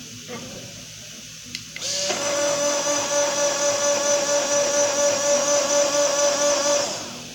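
Mini blender running, blending acerola juice with sugar: its motor starts about two seconds in just after a click, runs with a steady whine for about five seconds, then winds down.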